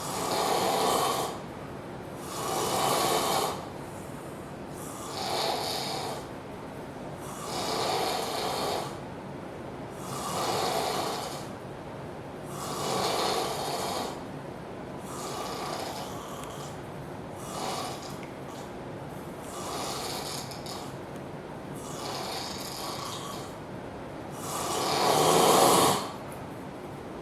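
A man snoring loudly in his sleep, one rasping snore about every two and a half seconds. The snores vary in strength, and the one near the end is the loudest.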